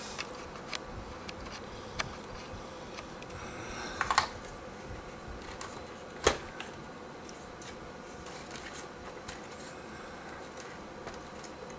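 A few small clicks and knocks from plastic RC-truck parts being handled and fitted, a small cluster about four seconds in and the loudest about six seconds in, over a faint steady hum.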